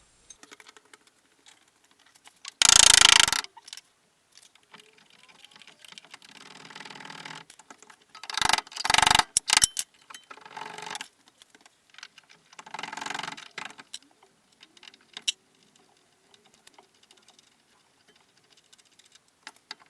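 Hand tools and metal suspension parts clinking and clattering, with a few sharp knocks and several louder rasping bursts, as a VAZ-2111 front lower control arm is knocked and worked free.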